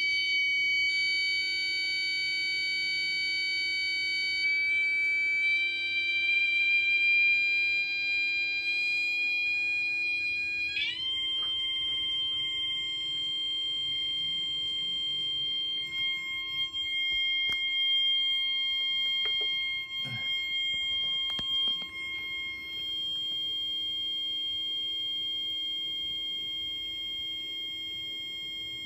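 Steady electronic tone from a 555 timer oscillator circuit, buzzy with overtones and set by a potentiometer. It creeps up slightly in pitch, jumps higher at about eleven seconds, then holds steady.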